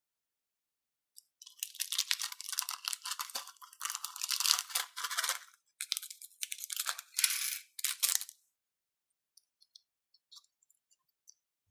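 Small clear plastic bag crinkling and crackling in the hands as it is handled and snipped open with scissors, in two spells of a few seconds each. A few faint small ticks near the end.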